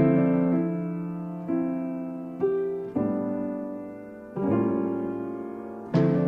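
Background piano music: slow chords struck about every second or so and left to fade.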